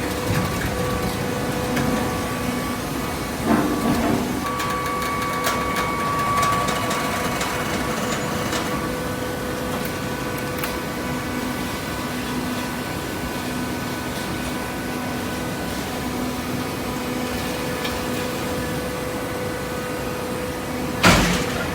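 Machinery running steadily with a hum and light clicking, a knock a few seconds in and a louder knock near the end.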